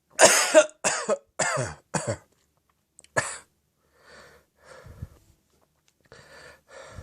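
A deep, throaty, phlegmy cough from catarrh in the throat, put down to throat phlegm and acid reflux. Four hard coughs come in quick succession, then one more about three seconds in, followed by quieter breaths.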